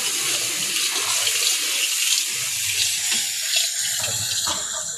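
Chopped tomatoes with ginger and garlic paste sizzling in hot oil in a large steel kadai, a steady hiss, while a flat metal spatula stirs and scrapes across the pan.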